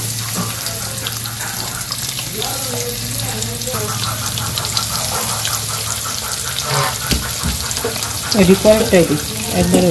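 Pabda fish shallow-frying in hot oil in a kadai, a steady sizzle with fine crackles, as pieces are laid into the pan at the start. A person's voice comes in briefly near the end, the loudest sound.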